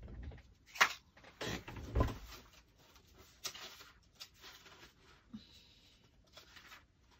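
Photos and papers being handled and set down on a table: rustling with a few sharp knocks, the loudest about a second in and another about two seconds in, then fainter clicks.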